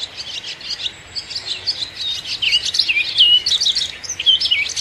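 Barn swallow singing: a fast, continuous twittering of short high chirps, with a few lower slurred notes in the middle.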